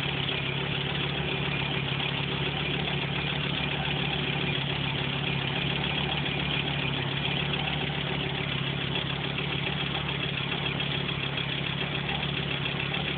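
Audi 200 20V's 3B 2.2-litre turbocharged five-cylinder engine idling steadily, with an unwanted mechanical noise that appeared after a rebuild. The noise grows louder as the engine warms, even though the tappets are new, the oil pump is good and the cams and timing belt are in phase.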